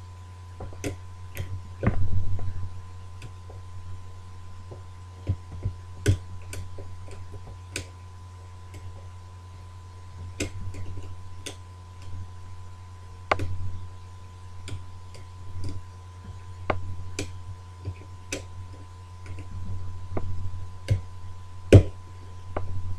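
Irregular small metallic clicks and scrapes of a pick wire and tension wire working the levers inside a British Standard ERA multi-slot lever lock, with a few louder knocks, over a steady low hum.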